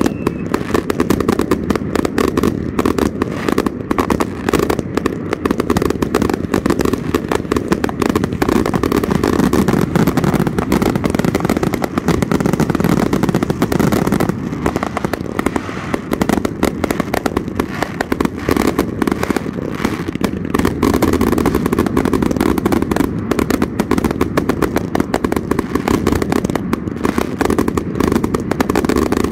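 Consumer firework cakes fired together in a finale: a dense, unbroken barrage of rapid bangs and crackle over a continuous low rumble.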